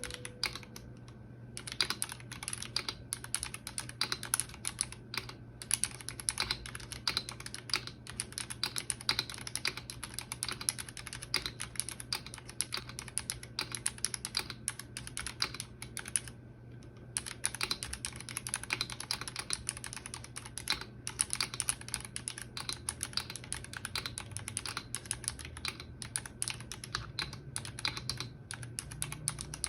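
Typing on a Gamakay K61 Pro mechanical keyboard with Crystal switches: a fast, steady stream of key clicks with a few brief pauses.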